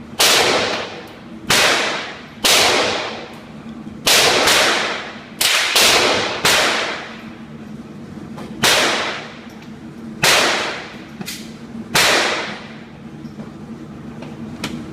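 A series of about eleven .22 rifle shots, irregularly spaced and twice coming in quick pairs. Each crack has a long echoing tail.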